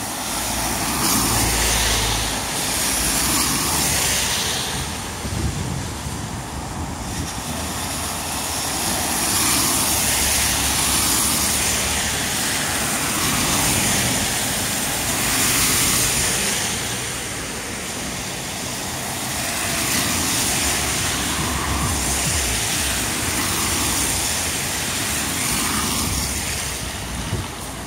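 Cars driving one after another through floodwater on the road, their tyres throwing up spray in rushing swells every few seconds, with engines running low underneath.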